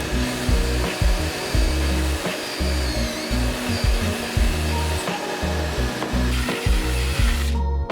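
Power saw running steadily through 3/4-inch plywood, cutting off shortly before the end, over background music with a steady bass line.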